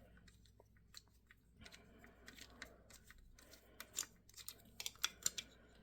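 Faint clicks and light scraping of a small screwdriver and fingers working on a model locomotive, unscrewing the screws that hold its body shell down. The clicks come closer together in the second half.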